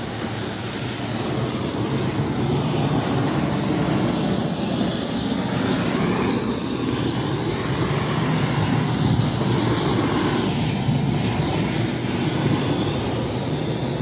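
Gas-cylinder flame gun (hose-fed burner wand) burning with a steady rushing noise that grows a little louder about two seconds in. It is being used to flame-disinfect the floor and walls of an emptied poultry shed.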